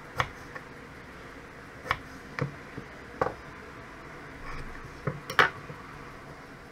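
Kitchen knife cutting through a carrot on a wooden cutting board: about six sharp, irregular knocks as the blade strikes the board, over a low steady hiss.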